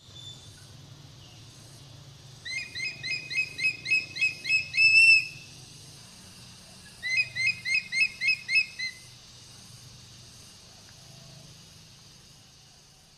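Eagle calling in two rapid series of sharp, high-pitched notes, each series about two to three seconds long, over a faint steady background hum.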